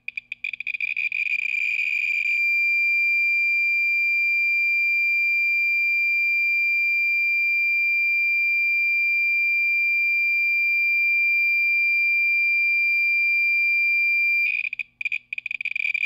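RadEye B20 survey meter's audible counts, a rapid crackle of clicks that merges into a steady high-pitched tone as an industrial smoke-detector source is held close, with the count rate past half a million counts per minute. Near the end the tone breaks back into dense clicking, then steadies again. A source this close overloads the detector.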